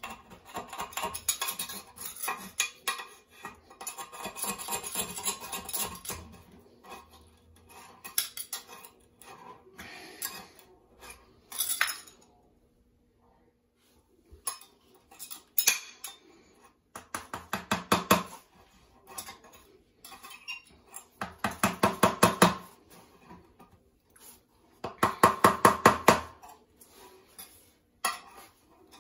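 Metal spatula scraping old silicone adhesive off a toilet base and floor. The scratchy scraping stops for a couple of seconds about halfway through. After that it comes in three louder bursts of rapid back-and-forth strokes.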